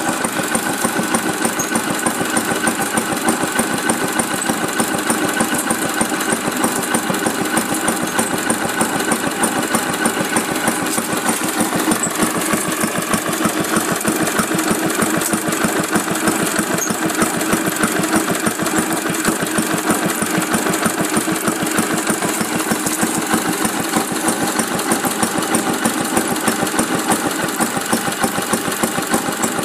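1940 Briggs & Stratton WI single-cylinder engine running steadily at a slow idle.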